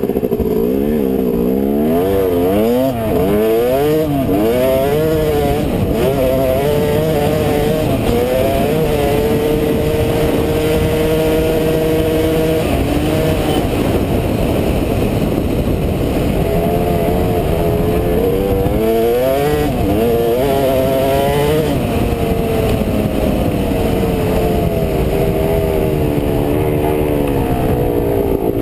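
2005 Yamaha YZ250 two-stroke dirt bike engine under way on a trail, its revs rising and falling again and again as the rider throttles on and off and shifts. About a third of the way through it holds steady revs for a few seconds, then goes back to repeated rises and drops.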